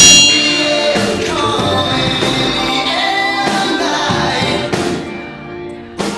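Music with singing, fading down near the end.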